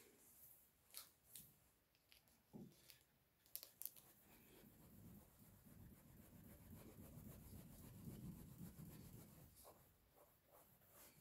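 Faint clicks of a steel knife blade being set down and handled on a wet whetstone, then a soft, low rubbing as the blade is worked flat on the stone.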